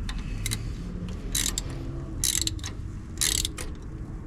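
Ratchet wrench clicking in a few short, uneven strokes while a starter mounting bolt is tightened.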